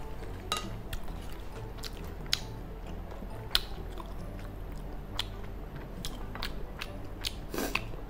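Wooden spoon scooping through fried rice and clicking against a glass dish, with irregular light clicks and soft mouth chewing sounds.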